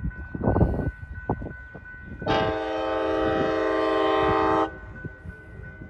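Amtrak Capitol Corridor passenger train's horn sounding one long blast of about two and a half seconds, a chord of several tones that starts and cuts off sharply, over the low rumble of the slow-moving train.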